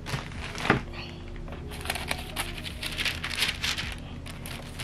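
Tissue paper crinkling and rustling in short bursts as it is folded back inside a box, with one sharper tap a little under a second in.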